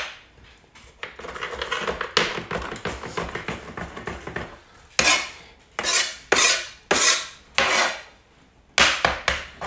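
Kitchen knife chopping green onions: a run of quick small chops, then five or six louder, separate strokes in the second half.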